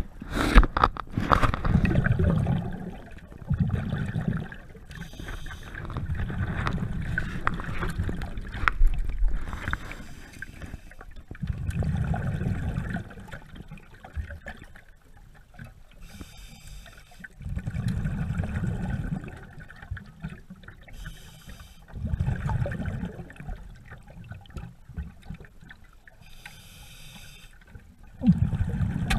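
Scuba diver breathing underwater through a regulator. Each breath is a short hiss on the inhale, then a gurgling rush of exhaled bubbles, about one breath every five seconds.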